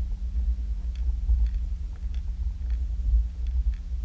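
Underwater sound around a camera being towed through the water: a deep, constant rumble of water moving past the housing, with a steady low hum and scattered faint clicks.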